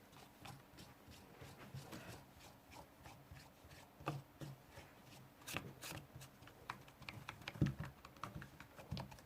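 Quiet, scattered small clicks, taps and rubbing of hands working at a table, with a few louder soft knocks in the second half.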